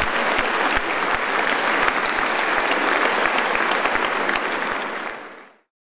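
Large audience applauding, a dense spread of many hands clapping, fading out near the end.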